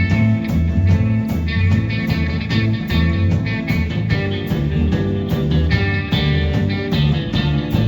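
Live band playing a rock-and-roll number: guitar over a steady bass line and a regular drum beat.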